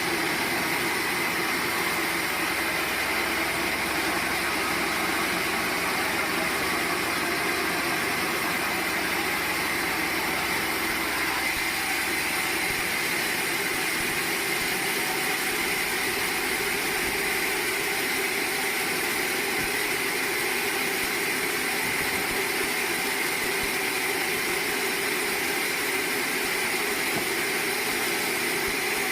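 Sawmill machinery running steadily, an even mechanical hum and whine with no clear cuts, starts or stops.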